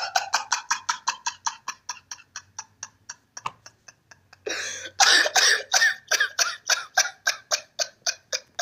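A man laughing in long runs of rapid, evenly spaced ha-ha bursts that trail off. He draws a long breath about four and a half seconds in, then breaks into a second, louder run of laughter.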